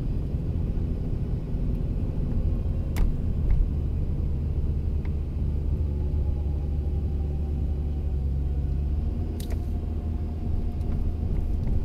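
Car driving uphill, heard from inside the cabin: a steady low rumble of engine and tyres on the road. A few short sharp clicks come through, the loudest about three seconds in and another near ten seconds.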